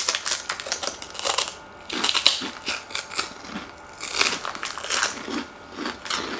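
Crunching bites and chewing of chicharon (fried pork rinds), an irregular run of crisp crackles.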